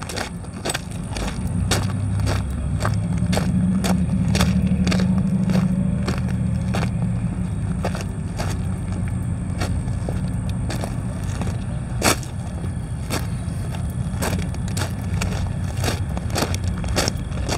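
Footsteps crunching on railroad track ballast at a steady walking pace, about two steps a second, over the low steady rumble of idling diesel locomotives. One sharper click comes about twelve seconds in.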